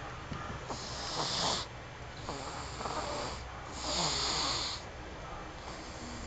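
Snoring, heard as three long, breathy snores a little over a second apart.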